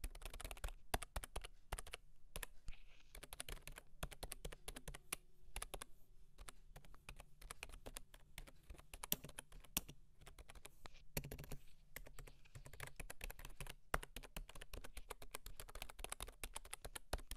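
Typing on a Logitech MK240 Nano wireless keyboard: a fast, irregular run of key-press clicks, picked up by a lapel microphone held just above the keys.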